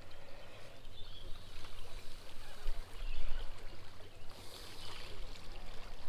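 Small waves lapping against a rocky shoreline, with wind buffeting the microphone, loudest about three seconds in.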